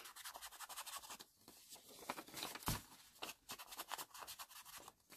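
Foam ink blending tool dabbed on an ink pad and rubbed along paper edges: many faint, quick scratchy strokes, with one louder knock about halfway through.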